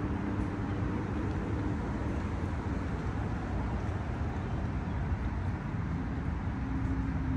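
Wind buffeting the microphone: a steady low rumble, with a faint hum near the start and again near the end.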